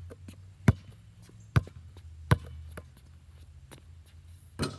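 Basketball dribbled on a concrete pad: three sharp bounces a little under a second apart, then a pause as he rises to shoot, then a louder clattering hit near the end as the jump shot strikes the hoop.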